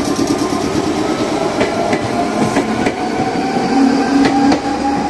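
Electric commuter train pulling out of the station: its motors whine with a slowly rising pitch as it gathers speed, and its wheels clack over the rail joints.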